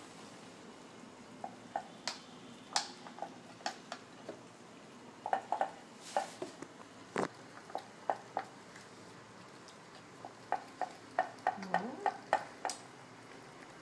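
Bengal kittens eating wet food from bowls: irregular soft smacks and clicks of chewing and lapping, bunched in quick runs, with a few sharper knocks.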